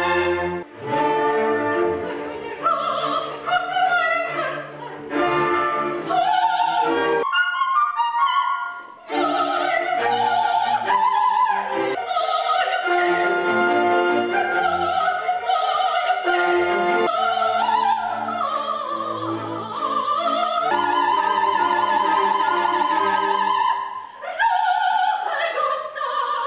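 Operatic singing with a symphony orchestra accompanying. A male singer comes first; after a short break about eight seconds in, a soprano sings high held notes with vibrato.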